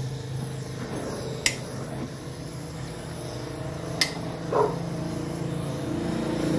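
Gas welding torch flame hissing steadily while an aluminum crankcase is welded with a filler rod, over a steady low hum. Two sharp clicks, about a second and a half in and again about four seconds in, and a short pitched sound just after the second one.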